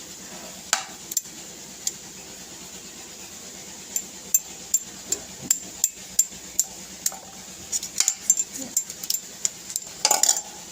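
A spoon stirring and clinking against a glass: a few separate light clinks at first, then quicker, irregular clinks from about four seconds in.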